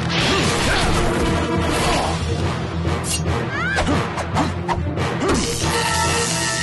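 Music with fight sound effects laid over it: repeated sharp hits, crashes and whooshes of a brawl.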